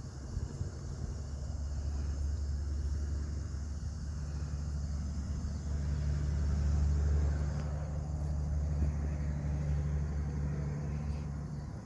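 A vehicle engine idling nearby, a steady low hum that swells slightly about halfway through.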